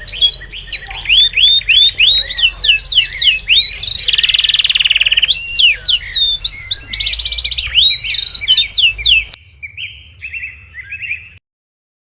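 Birds chirping in rapid, repeated sweeping notes, with a buzzy trill a few seconds in. About nine seconds in the sound drops suddenly to fainter chirps, which stop shortly before the end.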